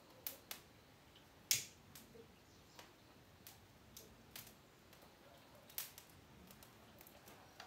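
Dry soybean stalks burning with faint, irregular crackles and pops, the sharpest about a second and a half in; the stalks catch poorly and do not burn long.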